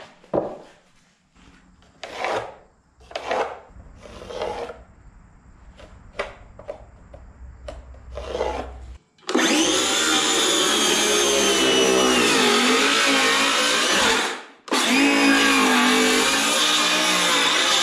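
Scrapes and knocks of boards being handled and marked, then a DeWalt cordless circular saw starts about nine seconds in and cuts into a wide wooden plank. Its whine dips briefly under load. It stops for about half a second, then starts again and keeps cutting.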